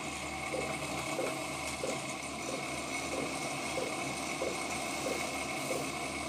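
Wood lathe running, with a hand-held turning tool cutting into the spinning wooden blank. The sound is a steady machine hum and hiss, with a soft pulse repeating about three times every two seconds.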